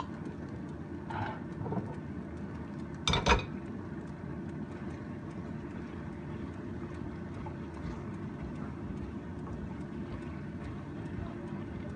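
Steady low rumble of a stove and kitchen while a pan of soy-sauce chicken wings cooks down over the heat, with faint crackling and one short clatter about three seconds in.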